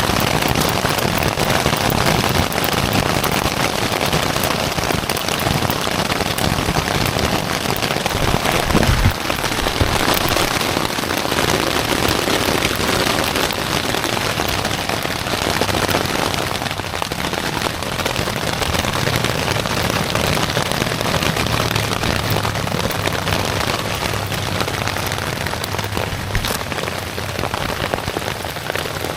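Heavy rain pouring down in a dense, steady patter, with one sharp thump about nine seconds in.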